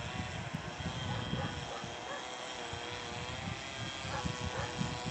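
Distant hum of an approaching 3ES5K "Ermak" electric freight locomotive: a steady drone that wavers slightly in pitch, with wind gusting on the microphone underneath.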